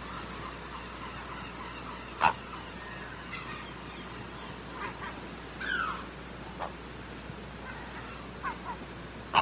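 Great blue heron giving short, harsh squawks: a loud one about two seconds in and another at the end, with a few fainter calls between, over a steady background hiss.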